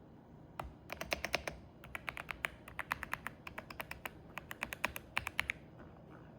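Typing on an Aula F75 mechanical keyboard: quick keystrokes in short bursts, stopping about a second before the end.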